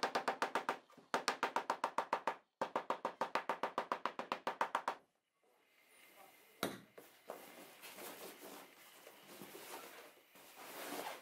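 A rapid train of sharp, pitched clicks, about ten a second, in three bursts over the first five seconds. Then a single thump, followed by the rustle of a canvas bag being handled.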